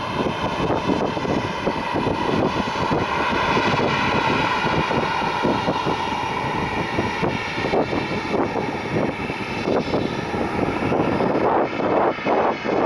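Boeing 737 MAX 9 jet airliner's CFM LEAP-1B turbofan engines running loud and steady, a jet rush with a high whine. Wind buffets the microphone, more so near the end.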